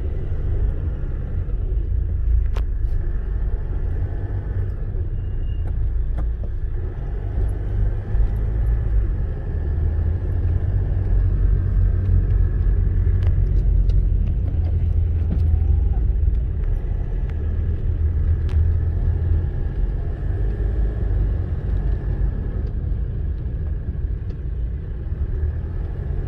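A car driving on a wet street, heard from inside the cabin: a steady low rumble of engine and tyres, with a few faint ticks.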